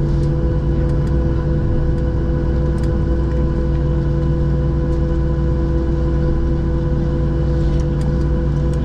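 Steady hum inside the cabin of a Boeing 737-700 on the ground after landing, with several constant tones from the engines and air systems and a few faint light clicks.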